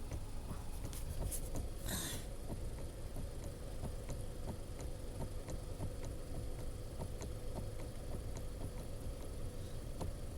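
Car engine idling steadily, with faint light clicks coming at fairly even spacing and a short hiss about two seconds in.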